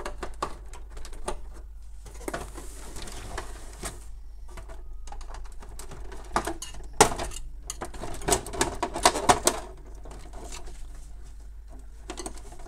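Plastic casing panels of a Canon MF216n laser multifunction printer being pried loose and handled: irregular plastic clicks, snaps and knocks, with a stretch of scraping a few seconds in and a quick run of sharp clicks from about seven to nine and a half seconds in.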